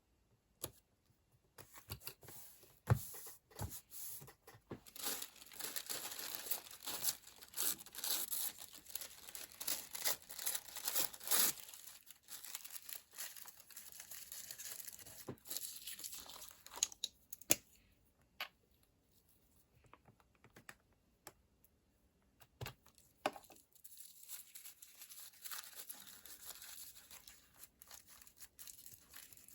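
Paper tearing and crinkling up close, a dense rustle broken by a few sharp clicks, dropping away for several seconds past the middle before the rustling starts again.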